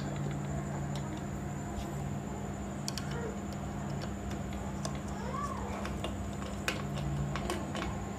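Sparse small metal clicks and ticks as a screwdriver works the set screws of a sewing machine's rotary hook (shuttle) and the hook is turned by hand, over a steady low hum.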